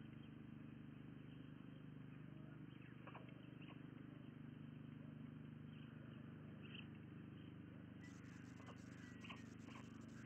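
Near silence: a steady low hum from the webcam's audio, with a few faint short chirps. About eight seconds in, a faint crackling hiss joins.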